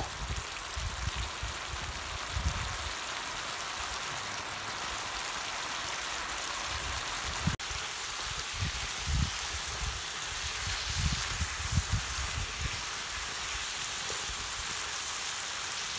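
Oily masala gravy with stuffed brinjals sizzling steadily in a frying pan over a wood fire, with irregular low thumps. The sound briefly cuts out about halfway through.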